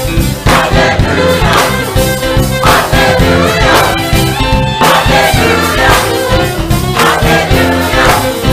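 Choir singing a gospel-style song with full instrumental backing and a steady beat.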